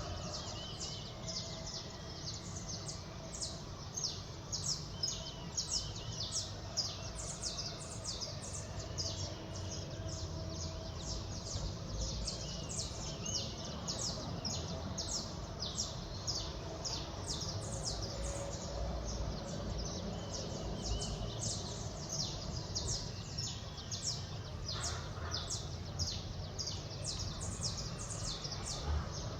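Small birds chirping continuously, quick high chirps several a second, over a low steady city rumble.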